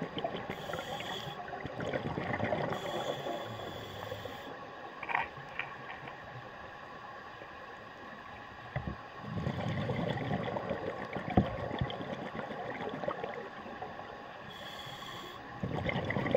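Scuba diver breathing through a regulator underwater, heard through the camera's underwater housing. A hissing inhale comes about a second in, a longer one a few seconds later and another near the end; bubbling exhales follow, the longest a little past the middle.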